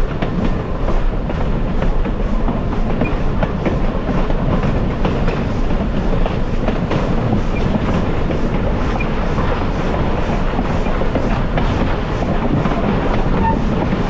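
Passenger train in motion: a steady rumble of the cars rolling along the track, with scattered clicks from the wheels over the rails.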